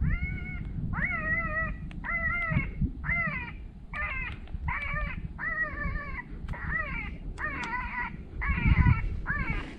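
Electronic predator caller playing a recorded animal cry through its speaker to lure coyotes: a high pitched cry repeated about a dozen times, a little more than one a second, each bending up at the start and falling away at the end.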